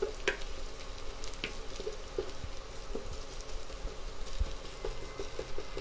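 Sliced garlic, ginger and cumin seeds frying in a little oil in a steel kadai: a soft, even sizzle with scattered scrapes and taps of a wooden spatula stirring them.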